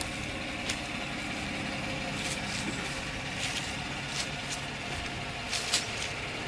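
2015 Chevrolet Silverado pickup's engine idling steadily, with a few short, light clicks over it.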